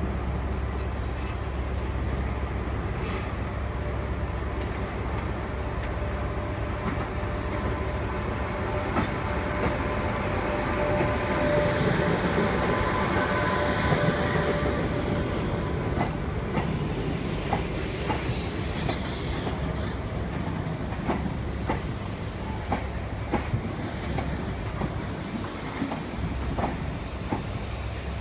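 Class 86 electric locomotive 86401 and its sleeper coaches arriving slowly: a steady rumble, a faint squeal of wheels about halfway through, then scattered clicks as the coach wheels pass over rail joints.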